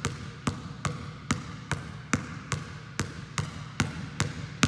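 Basketball dribbled one-handed on a gym floor in a steady V dribble, the ball going front to back, about two and a half bounces a second.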